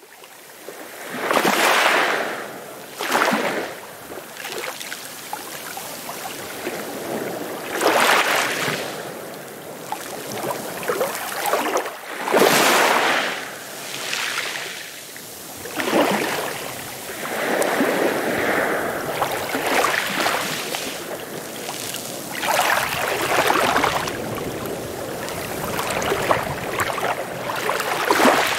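Small waves lapping and splashing at the water's edge, rising and falling in irregular surges every few seconds.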